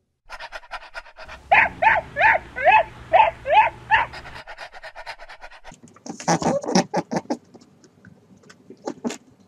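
A small dog panting rapidly and whining in a run of seven short cries that rise and fall in pitch. A rougher burst of animal noise follows about six seconds in, with a few sharp clicks near the end.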